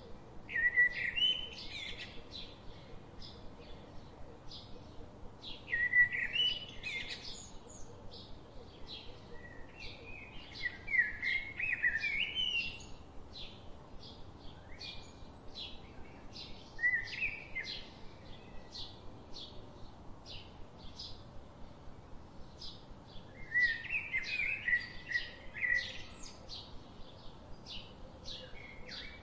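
Birds chirping and singing: short high chirps repeat about twice a second, with louder warbled song phrases every few seconds.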